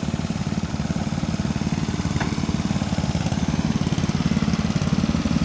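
Garden tractor's small engine running steadily, its firing pulses even throughout.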